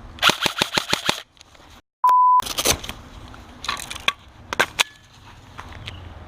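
Airsoft guns firing: a rapid burst of about seven shots, then scattered single shots and short bursts. About two seconds in, a short loud steady beep sounds.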